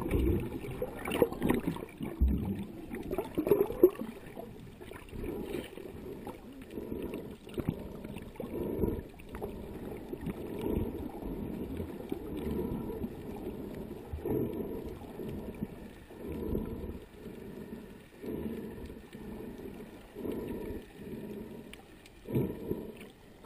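Muffled water noise picked up by a camera held underwater, swelling and fading in low surges about every two seconds.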